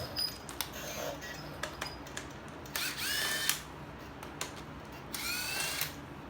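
Power ratchet motor running in two short bursts, each with a quick rising whine, about three seconds in and again about five seconds in, backing out the 9/16 breather bolts. Small metallic clicks of handling come between the bursts.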